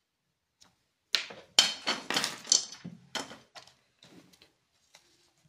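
A quick clatter of hard clicks and clinks, hard objects handled and set down on a tabletop, starting about a second in and lasting some two seconds, then a few faint ticks.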